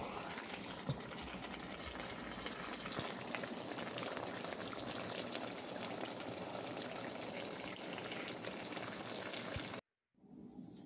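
Beef and onions sizzling and bubbling in a metal pot, a steady hiss with a few faint clicks, which cuts off suddenly near the end.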